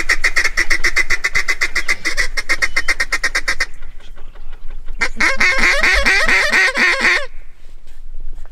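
Duck call blown to bring in passing mallards: a fast, rattling chuckle for about four seconds, then after a short pause a quick run of quacks, each falling in pitch.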